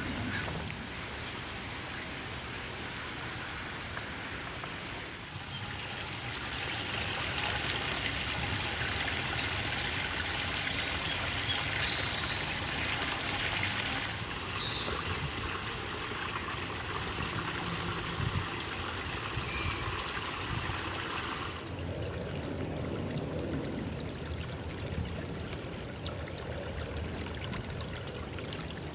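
Small creek trickling and splashing over stones and gravel in a steady running-water sound, louder through the middle.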